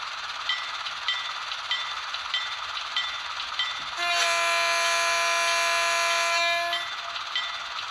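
Model locomotive sound decoder playing a 44-tonner's diesel idle through a small speaker, a steady hiss with a light tick repeating about every half second or so. About halfway through, a single locomotive horn blast sounds for about two and a half seconds, much louder than the idle, then stops.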